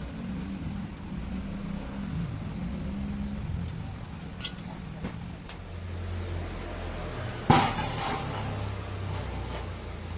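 A low steady hum with a few faint clicks, then one sharp knock that rings briefly about three-quarters of the way through.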